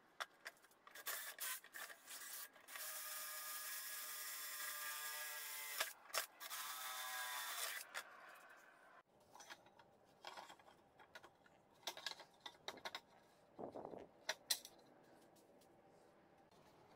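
Cordless DeWalt drill drilling into a steel square-tube frame: a few short bursts, then two longer runs with the motor whine shifting in pitch under load. After that come only faint clicks and scrapes of handling.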